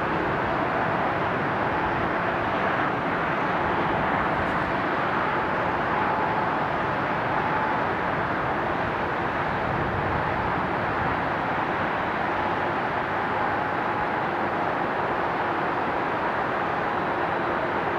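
Airbus A321-200 airliner on approach to land: a steady, distant jet-engine rumble with a faint whine.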